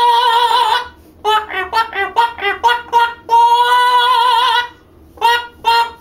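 Mealy Amazon parrot singing in an operatic style: a long held note with vibrato at the start, a run of short quick notes, a second long held note about three seconds in, then more short notes after a brief pause.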